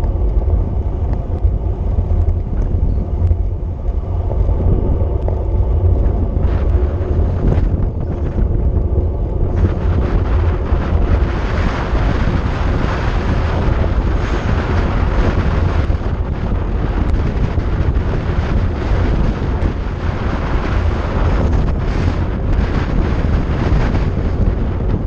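Wind buffeting the microphone of a bike-mounted camera on a fast road-bike descent: a steady low rumble that turns louder and hissier about ten seconds in.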